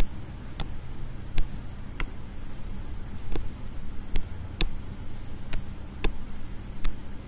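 Computer mouse clicking about ten times at uneven intervals over a low steady hum.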